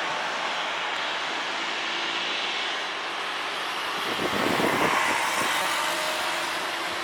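Jet airliner engine noise, a steady rushing roar that swells briefly about four seconds in.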